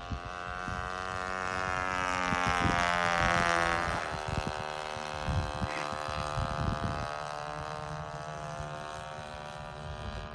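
Gerald Smith Skylark model engine running steadily in a control-line model plane in flight. It grows louder as the plane comes round past the microphone, peaking about three seconds in, then fades as the plane moves away. Low wind thumps on the microphone.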